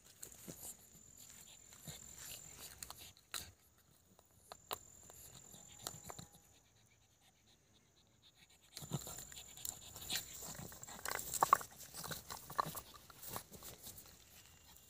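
A pug making short noises as it plays in dry grass, loudest and busiest from about nine to thirteen seconds in, with scattered rustles and clicks.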